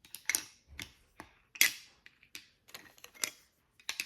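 Small plastic kit pieces being handled, giving irregular light clicks and taps, the sharpest about a second and a half in.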